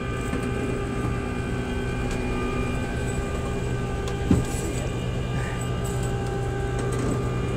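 Flatbed tow truck's engine and bed hydraulics running steadily as a steady hum made of several held tones while a car sits loaded on the bed.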